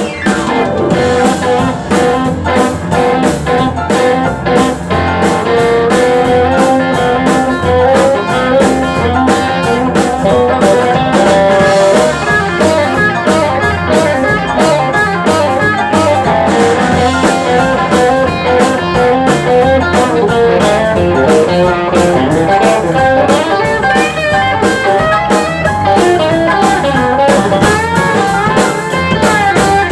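Band playing an instrumental passage with no singing: a guitar carries the melody over a steady drum kit beat.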